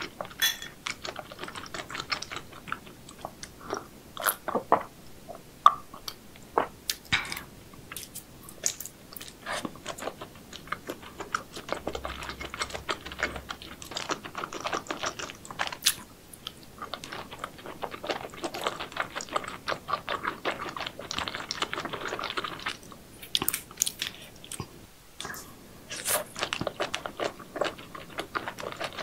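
A person eating seafood: chewing and crunching, with many sharp clicks and cracks and a longer stretch of dense crackling midway.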